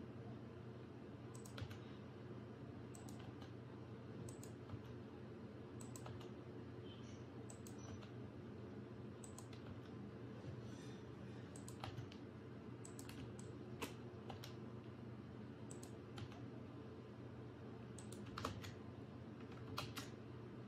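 Computer keyboard keystrokes and mouse clicks: scattered sharp single and paired clicks, roughly one every second, over a faint steady low hum.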